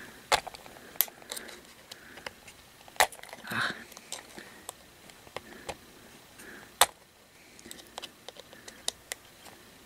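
Scattered sharp clicks and small ticks of a flathead screwdriver against the metal battery contacts and plastic of a toy's battery compartment, as the contacts are pried outwards to make a better connection with the batteries.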